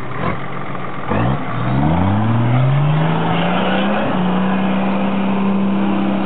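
Off-road 4x4's engine revving up hard about a second in and then held at high revs as the vehicle works over a rough forest trail obstacle, with a couple of knocks near the start.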